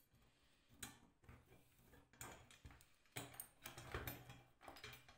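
Faint, irregular light clicks and rattles of a small rusty chain and sprocket being handled, metal parts knocking together, more of them in the second half.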